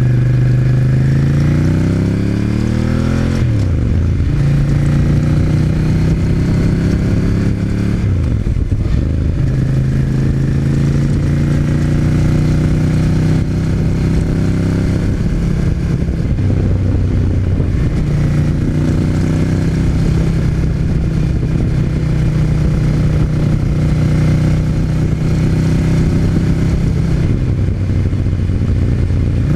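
Ducati Monster 796's air-cooled L-twin engine running. It rises in pitch for the first few seconds, drops suddenly, then holds fairly steady with a few brief dips. A thin metallic rattle comes from within the bike around 3500–4500 RPM under acceleration; its cause is unknown.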